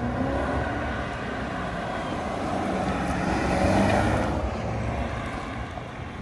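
A vehicle engine running, with steady road-noise-like rush, swelling to a peak about four seconds in and easing off toward the end.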